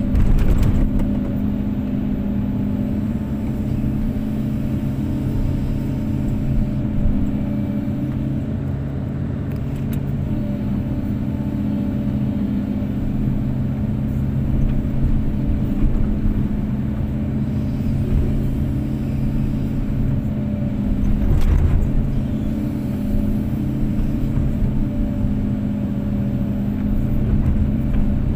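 Kobelco SK250-8 excavator's diesel engine running steadily, with two brief knocks: one just after the start and one about three quarters of the way through.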